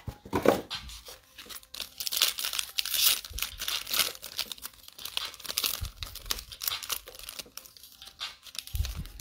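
Foil wrapper of a Panini Prizm NBA trading-card pack being torn open and crinkled by hand. The tearing and crackling is densest in the first half, then settles into sparser crinkles.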